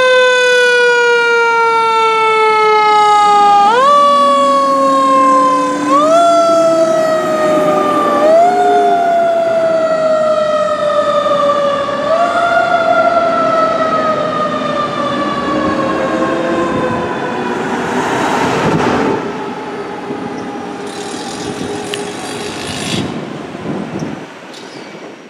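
Siren of a 2005 Seagrave Marauder fire engine responding to a call: the wail is pushed up in quick rises every few seconds, each sliding slowly back down. A brief louder rush of noise comes about three quarters through, and the siren grows fainter toward the end as the engine drives away.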